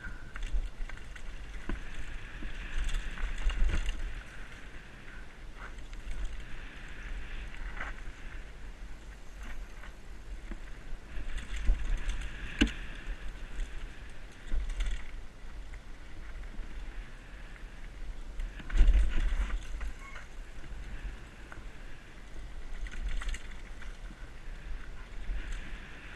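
Helmet-mounted camera audio of a mountain bike descending a dirt trail: wind buffeting the microphone, tyres running over dirt and the bike rattling over bumps, with sharper knocks now and then, the loudest about 19 seconds in.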